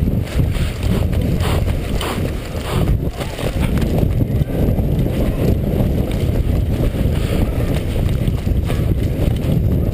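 Low rumble of wind and jostling on a GoPro's microphone while its wearer runs, with uneven knocks from footfalls and gear.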